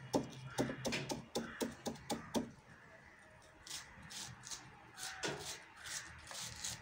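Kitchen knife chopping small pieces off a fresh kudampuli (Malabar tamarind) fruit, the blade knocking quickly, about five times a second, for the first two and a half seconds, then with fewer, lighter strikes.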